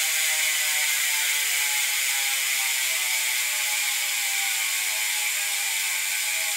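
Freshly rebuilt Profile Elite rear BMX hub freewheeling, its six new pawls clicking over the ratchet ring in a fast, even buzz. The pitch slowly drops as the spinning wheel slows.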